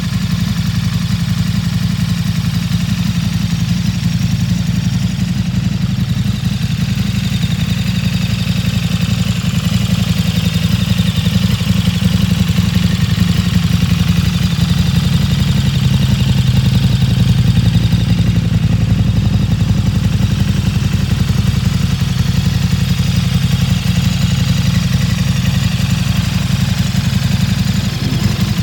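KTM 1290 Super Duke R's 1301 cc V-twin engine idling steadily with a low exhaust note.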